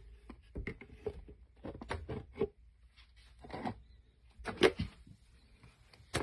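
Irregular light clicks and knocks from handling objects, with two longer scuffs about three and a half and four and a half seconds in.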